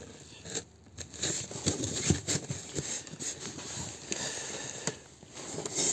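Cardboard box being handled and its flaps folded down over packed parts: irregular rustling and scraping of cardboard with light knocks and clicks.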